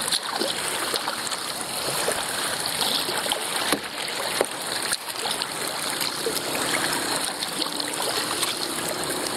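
Kayak paddle strokes splashing and water washing along the hull of a 1999 Dagger Redline whitewater kayak, steady throughout, with a couple of sharp clicks around the middle.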